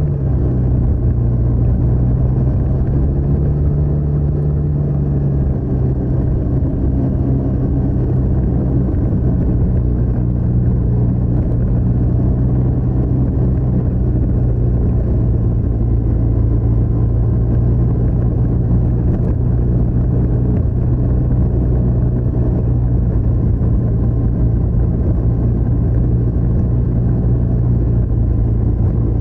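TVS NTorq 125 scooter's single-cylinder four-stroke engine running under way through its stock exhaust: a steady, low exhaust note that lifts slightly in pitch early on, then settles and holds.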